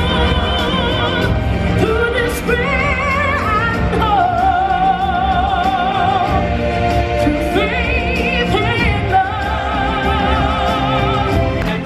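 Live stage-show music: a singer holds long notes with heavy vibrato over a full backing of drums and band, played loud through a theater's sound system.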